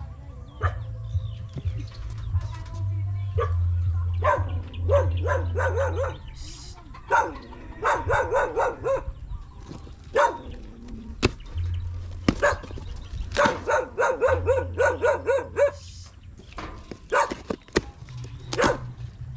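Dog barking in several quick runs of short barks and yaps, over a low rumble that comes and goes.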